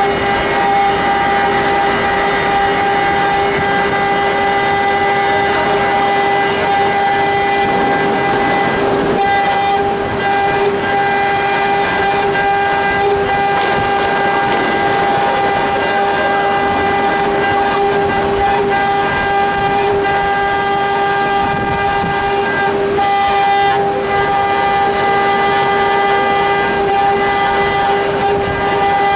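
2.2 kW water-cooled CNC router spindle running at speed with a steady high whine, its small cutter engraving an aluminium plate, with a rough cutting noise under the whine.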